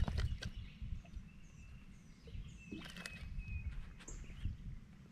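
Birds chirping in short high notes, with one longer whistle about three seconds in, over a steady low rumble. A few sharp clicks or knocks come near the start and around three seconds.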